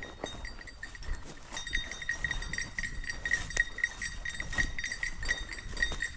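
A small metal bell clinking unevenly, about four strikes a second, as it swings on a moving animal, with a few knocks among the strikes.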